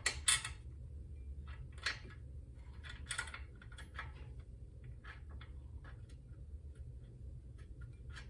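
Scattered light metal clicks and taps as treadmill motor mounting bolts are set in place by hand and threaded in loosely, over a steady low hum.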